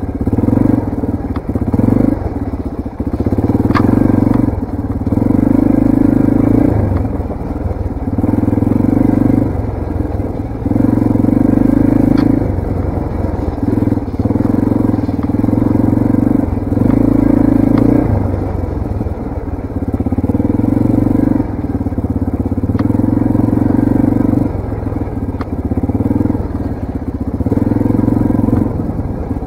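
Yamaha TTR230 trail bike's single-cylinder four-stroke engine running under load while riding, the throttle opening and easing off every second or two so the engine note rises and falls in surges. A few sharp ticks are heard over it.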